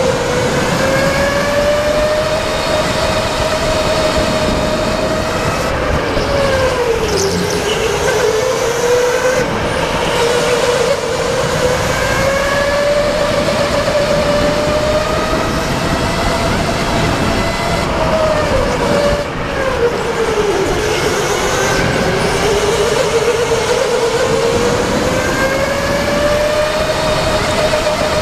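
Go-kart motor whining as the kart laps, its pitch rising with speed and dipping sharply twice as it slows for corners, over a steady rushing noise.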